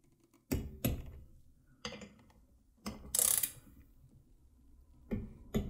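Ratchet and torque wrench clicking as cylinder head bolts are tightened to a set torque: about seven sharp separate clicks, with a short rasping ratchet burst a little past three seconds in. Each wrench click signals a bolt reaching the set torque.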